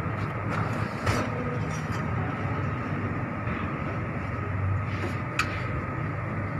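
Steady low mechanical hum of workshop background noise, with a couple of short sharp clicks, one about a second in and another a little after five seconds.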